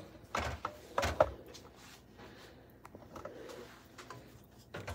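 A few soft knocks and clatter of cookware being handled, two in the first second or so and one near the end, with quiet room sound between.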